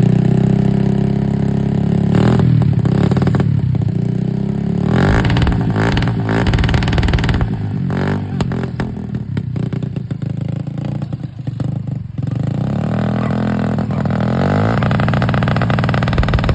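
Small 50cc motorcycle engine running loud and being revved, its pitch rising and falling several times with brief dips between.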